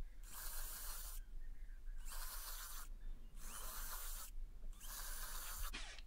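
Cordless drill boring drainage holes through the wooden floor of a nest box with a large bit, in four short runs of about a second each with pauses between.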